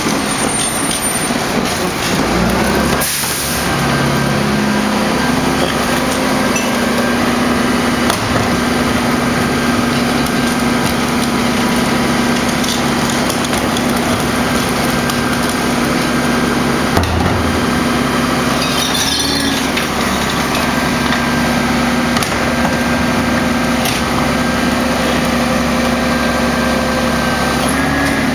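Rear-loading garbage truck's diesel engine running steadily, stepping up to a higher idle about three seconds in and holding there while recycling carts are tipped and knocked against the hopper, with a few clunks.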